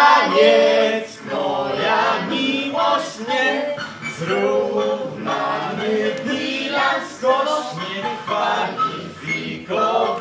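Several voices singing together, a group song with male voices among them.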